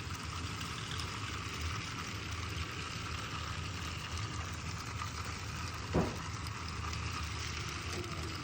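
A small battery-powered toy car running on plastic Magic Tracks, a steady whirring hum, with one sharp click about six seconds in.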